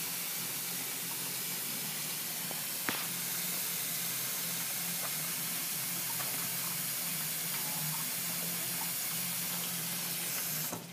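Kitchen faucet running a steady stream of water into a plastic baby bathtub of bubbly water, with one small knock about three seconds in. The running water is shut off just before the end.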